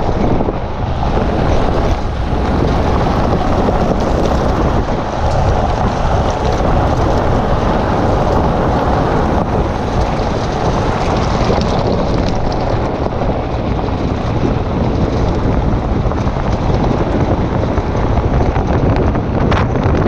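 Wind rushing over the microphone of a camera mounted outside a moving vehicle, steady and loud, over the low rumble of the vehicle on the road.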